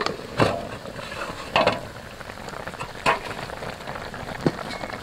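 Chicken pieces simmering in sauce in an iron wok over a wood fire, a steady bubbling sizzle. Four short knocks and scrapes come about a second and a half apart as a wooden spatula lifts off the enamel plate used as a lid.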